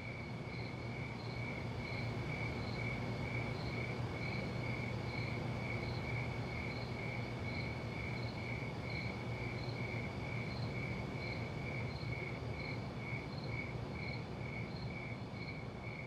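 Insect chirping steadily, about two chirps a second, each a high clear tone, over a low steady rumble.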